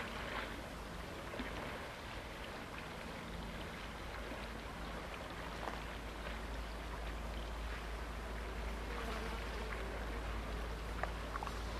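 Steady outdoor ambient noise: an even hiss over a low rumble that grows a little stronger about three seconds in, with a few faint clicks near the end.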